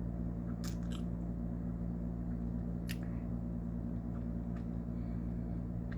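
A few soft, wet mouth clicks of someone chewing chicken spaghetti, over a steady low electrical hum.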